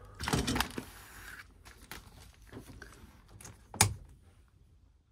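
Pleated fabric partition curtain rustling as a hand pulls and pushes it along. Small clicks follow, then one sharp click near the end as the curtain's edge is fastened with its snap.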